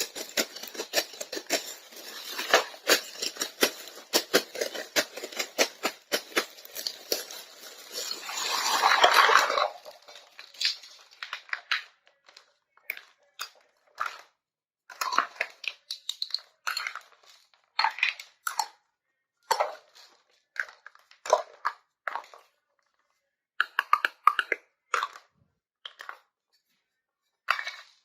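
Plastic packaging crinkling and tearing as a miniature toy kitchen set is unboxed, a dense crackle that swells to its loudest and stops about ten seconds in. It is followed by scattered light clicks and taps of small toy pieces being handled and set down.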